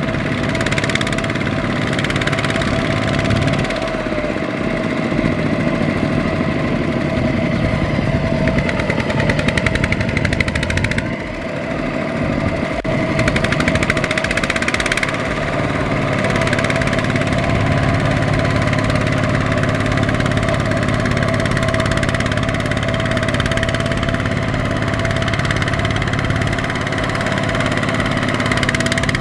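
Two-wheel walking tractor's single-cylinder diesel engine running hard under load, trying to drag a loaded rice trailer out of deep mud. The note dips briefly about eleven seconds in, then picks up and runs steadily again.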